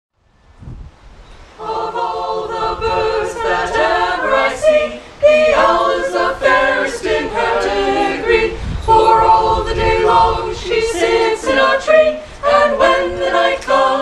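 A small mixed group of men and women singing a cappella in harmony, with no instruments, coming in together about one and a half seconds in.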